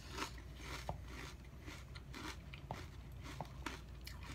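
Close-up chewing of a mouthful of Frosted Flakes with crispy cinnamon basketball puffs in milk: irregular quick crunches. A few light clinks, like a spoon touching a glass jar, come between them.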